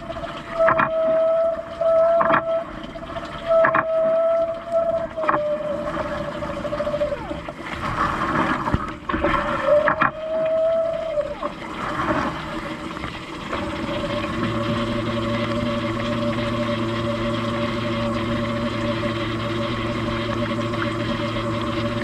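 Siemens dishwasher mid-wash from inside the tub: the circulation pump whines while water from the rotating spray arm sweeps over the camera in regular splashes about every second and a half. About two-thirds through, the spray settles into a steady lower hum.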